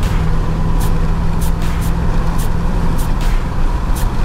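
Duramax turbodiesel V8 pulling under boost, heard from inside the cab. The engine note drops about three seconds in as it eases off. A few sharp ticks are scattered over it.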